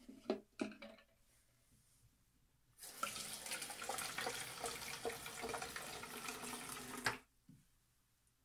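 Bathroom sink faucet running into the basin for about four seconds, starting about three seconds in and shutting off abruptly near seven seconds. Before that, a few light knocks as a plastic 3D-printed vase is set down in the sink.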